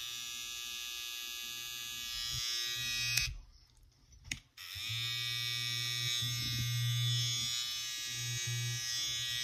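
Rose gold Babyliss T-blade hair trimmer running with a steady electric buzz. It is switched off about three seconds in and back on about a second and a half later.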